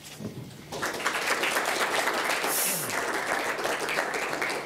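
Audience in a lecture hall applauding. The applause starts about a second in, holds steady and begins to thin near the end.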